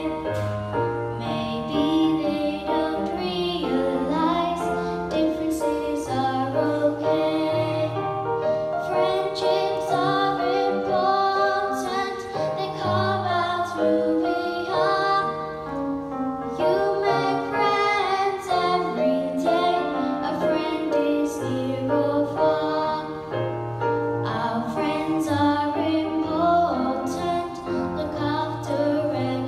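A young girl singing a ballad into a microphone, with electric keyboard accompaniment playing sustained chords and bass notes underneath.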